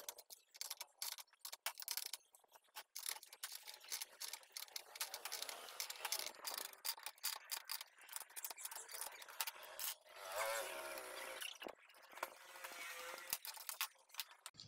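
Light, irregular clicks and taps of hand tools and small engine parts being handled during scooter engine work.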